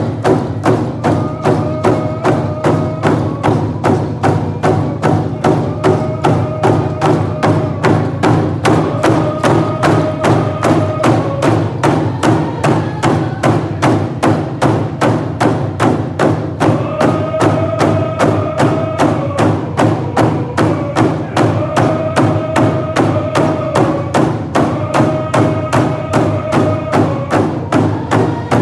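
Hand drums beaten in unison at a fast, steady beat of about three strokes a second, under a group of voices singing a song in repeated phrases a couple of seconds long.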